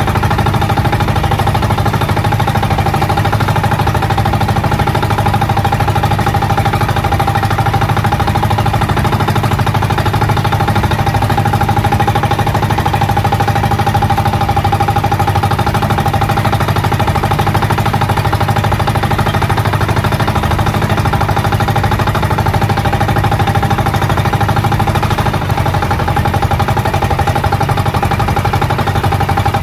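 Small engine of a motorized outrigger banca running steadily at trolling speed, an even, unchanging drone.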